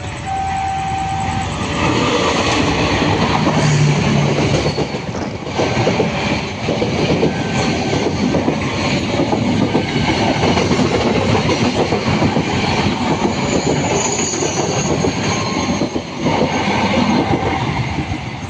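Train passing close by, its wheels clattering over the rail joints for about sixteen seconds. A short warning tone from the crossing siren sounds in the first second or so.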